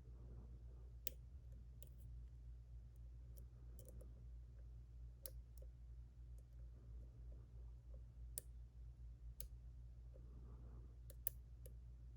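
Faint, irregular clicks of a lock pick and tension tool working the pins and sidebar of a JPM Surf pin-tumbler lock, one click louder near the end, over a steady low hum.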